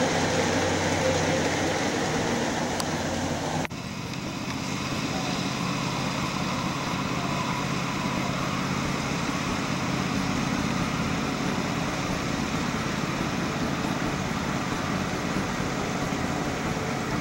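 Ridable scale-model train running, a steady engine-like hum under a broad rumble. The sound breaks off abruptly about four seconds in and carries on much the same afterwards.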